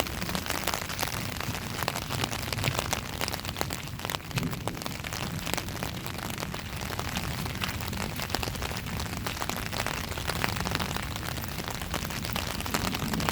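Steady rain falling, with many individual drops striking close by as sharp ticks over a constant hiss.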